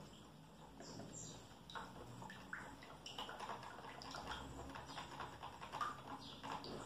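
Faint, scattered taps and swishes of a metal spoon stirring liquid in a small plastic tub.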